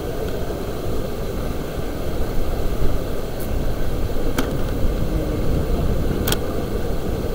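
Shallow stream rapids rushing over flat rock: a steady, low, rumbling wash of water. Two brief sharp clicks cut through it, one past the middle and one near the end.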